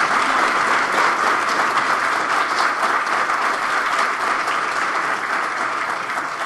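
Audience applauding: dense, steady clapping from a roomful of people, easing slightly near the end.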